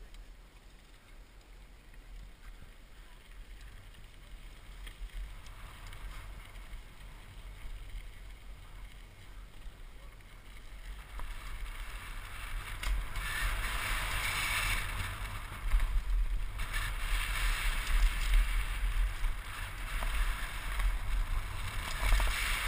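Mountain bike riding down a dirt and gravel trail: tyre crunch and rattle with wind buffeting the helmet-mounted camera's microphone, quiet at first and growing steadily louder from about halfway as speed builds.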